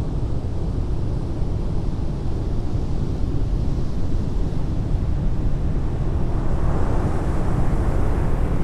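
Ocean surf breaking on a beach: a steady low wash of waves, swelling louder as a wave breaks and washes in near the end.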